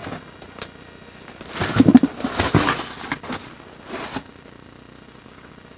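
Cardboard shipping box being opened and unpacked: a few bursts of rustling and scraping of cardboard and packing material, with a click near the start.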